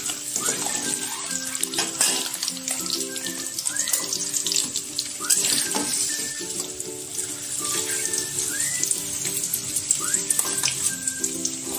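Peeled hard-boiled eggs frying in hot oil in a wok, a steady sizzle with crackles and spatters, under background music.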